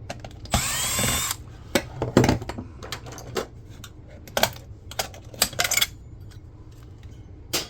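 A cordless drill or electric screwdriver spins briefly for just under a second, its motor pitch sweeping as it backs out a screw. It is followed by a series of scattered clicks and knocks as the parts are handled.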